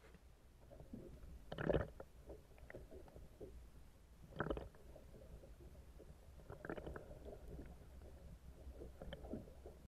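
Muffled underwater sound picked up by a submerged camera: a low steady rumble with irregular gurgles and thuds of water moving around the housing, the loudest about a second and a half in and again near the middle.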